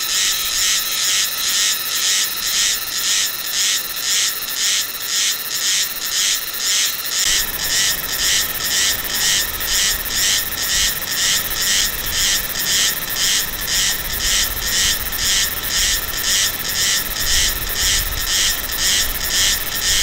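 Meimuna cicada (silver-bellied cicada) singing: a regular, duck-like quacking pulse, about two calls a second, high-pitched and steady.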